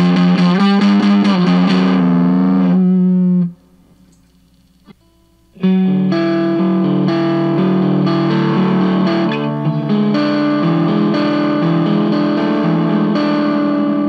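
Electric guitar riff, played back from a looper, through a Stewmac Sun Fuzz (Fuzz Face–style) pedal fitted with a BC108 silicon transistor, fuzz and bias at 3 o'clock. The riff stops a little over three seconds in, and a single click falls in the short pause. Then the same riff comes back through the pedal with a BC109C transistor in it.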